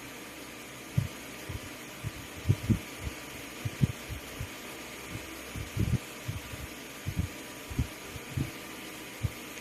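Soft, irregular low knocks and bumps, about twenty over nine seconds with no steady rhythm, over a steady hum and hiss.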